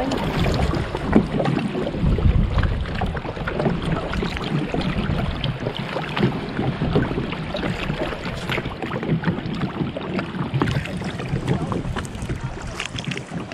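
Kayak paddles dipping and splashing, with water lapping and dripping around the hull and wind rumbling on the microphone.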